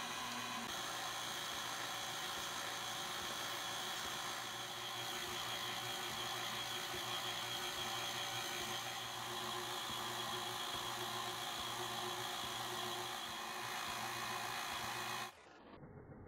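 KitchenAid Artisan stand mixer motor running steadily, turning the ice cream maker attachment's paddle to churn the ice cream base in the frozen bowl. About a second before the end the sound drops abruptly to a quieter, duller hum.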